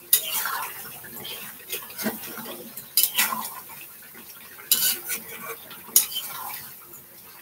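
Metal spatula stirring and scraping chicken around a cooking pot, with several sharp clanks of metal on the pot. The chicken is being browned in its spices (bhuna/kosha stage).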